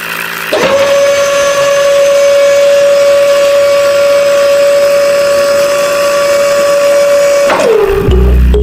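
Small electric motor spinning up about half a second in, running at a steady high whine, then winding down near the end.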